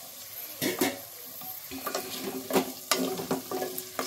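Wooden spatula stirring and scraping against the steel walls of a pressure cooker, knocking irregularly, while diced carrots and sliced onions sauté in butter and oil with a light sizzle.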